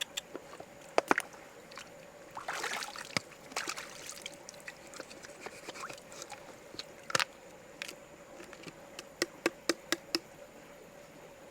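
Scattered sharp clicks and knocks, with a short rush like water about two and a half seconds in and a quick run of about six clicks near the end, over a faint steady hum.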